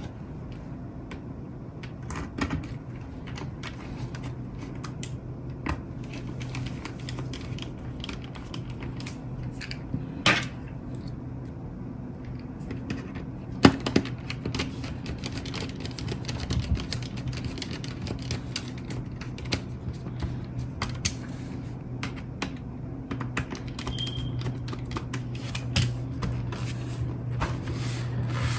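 Irregular small clicks and taps of a screwdriver driving screws into a laptop's bottom case, over a steady low hum.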